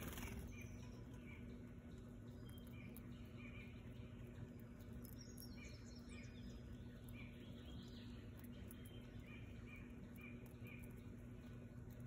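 Faint woodland ambience with songbirds chirping: short chirps repeated every half second or so, and a few higher calls about halfway through. Right at the start there is a brief wing flutter as a tufted titmouse takes off from the water tray.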